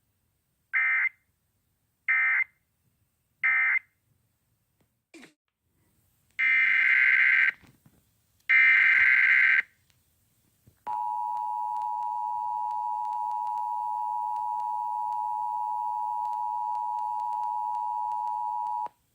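Emergency Alert System tones from a radio. First come three short squawking data bursts, the end-of-message code that closes the previous alert. A few seconds later two longer squawking header bursts open a new alert, followed about a second later by a steady attention tone held for about eight seconds.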